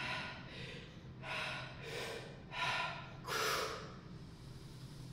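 A man breathing hard between reps of a heavy, high-rep barbell back squat set: about five quick, forceful breaths in the first few seconds, then quieter near the end.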